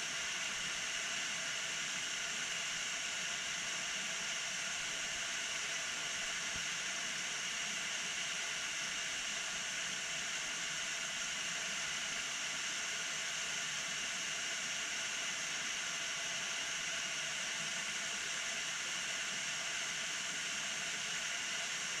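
Steady rushing hiss of a tall, narrow waterfall pouring down a rock face onto the rocks below, unchanging throughout.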